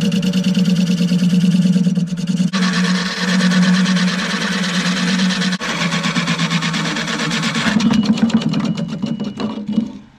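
Turning tool cutting into a spinning wooden bowl blank on a wood lathe: a loud, steady shaving noise over a low hum. It dies away near the end as the lathe comes to a stop.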